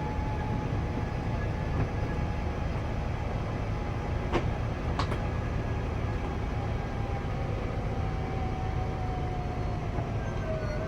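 Travel-trailer slide-out's electric motor running as the room extends: a steady whine that sinks slowly in pitch toward the end, over a steady low rumble. Two sharp clicks come a little past four and five seconds in.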